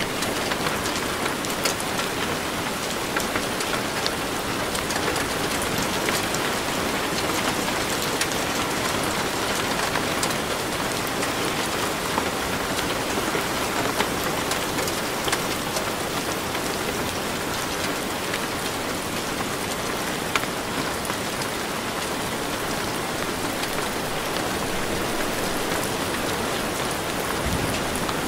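Steady rain: an even hiss with scattered drop ticks that holds at one level throughout.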